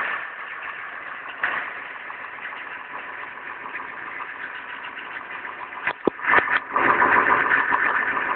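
Chevy 6.5L turbo diesel engine struggling on a cold start. It runs rough, falls quieter with a single knock, then a few sharp bangs about six seconds in before it comes back loud. The owner takes the hard start as a sign that the new glow plugs have not fixed it.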